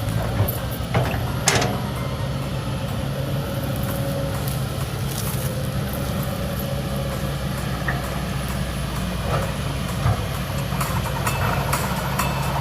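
Kobelco excavator's diesel engine running steadily with a low drone. A few sharp knocks come in the first two seconds.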